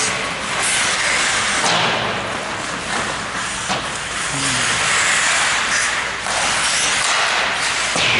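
Ice hockey play: skate blades scraping and hissing on the ice, with a few sharp clacks of sticks and puck.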